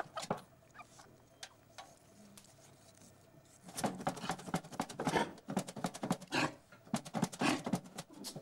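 Freshly killed chicken thrashing under an upturned tin pail held down by hand: a rapid, irregular scuffling and knocking of wings and feet that breaks out about four seconds in and keeps going. This is the reflex flapping of a bird after it is killed, which is why it is covered with the pail.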